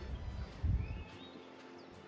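Faint bird chirps over quiet seaside ambience, with a low thump about half a second in.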